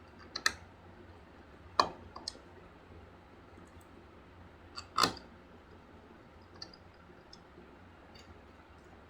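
Sharp plastic clicks and knocks from a laptop being reassembled: a quick pair of clicks near the start, a loud knock a little under two seconds in with a smaller click after it, and the loudest knock about five seconds in, with a few faint ticks in between.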